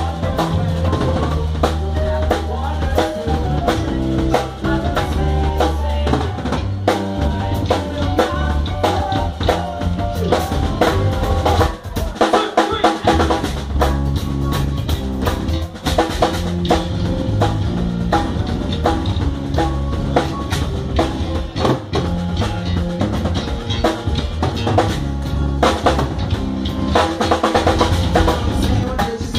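A live band playing an instrumental passage: drum kit to the fore, over electric bass and keyboard. The bass drops out briefly about twelve seconds in, then comes back.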